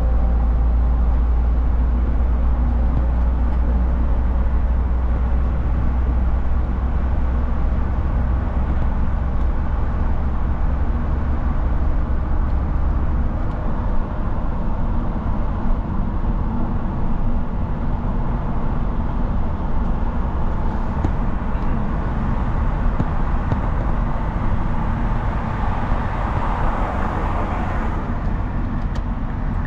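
Steady car road noise from inside the cabin on a busy highway: engine and tyre rumble with surrounding traffic. The deepest part of the rumble drops off about halfway through.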